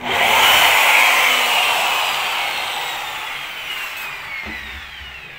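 Electric power tool starting abruptly and then winding down: a whine that falls steadily in pitch and fades over about five seconds.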